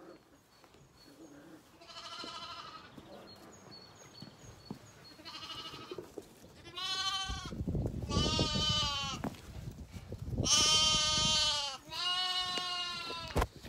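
Zwartbles lambs bleating: two fainter quavering bleats, then four loud bleats close to the microphone in quick succession. Under the second loud bleat there is a low rustling noise.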